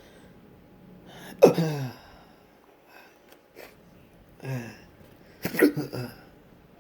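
A man's involuntary spasm sounds: sudden gasping, hiccup-like catches in the throat, each a sharp onset followed by a voice sliding down in pitch. The loudest comes about a second and a half in, another at about four and a half seconds, and a quick cluster near six seconds. They are part of a spasm in a case of persistent intractable hiccups with breathing spasms.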